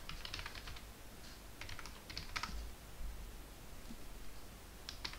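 Typing on a computer keyboard: quick runs of key clicks, two runs early on, then a pause of about two seconds before another run near the end.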